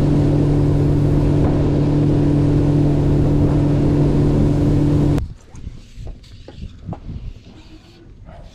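Outboard motor of a fishing skiff running steadily at speed, a loud even drone with rushing wind and water. It cuts off abruptly about five seconds in, leaving only faint small knocks and ticks.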